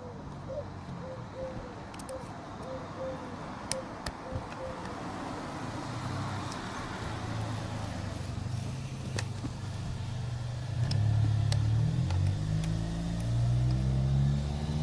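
A motor vehicle's engine running and growing louder from about halfway through, its pitch rising over the last few seconds as it speeds up. A few sharp metallic clicks come earlier, from a screwdriver working a battery terminal nut.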